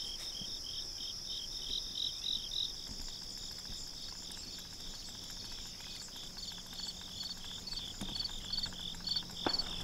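Insects calling: a steady high-pitched trill with a second insect chirping rhythmically over it, about three chirps a second.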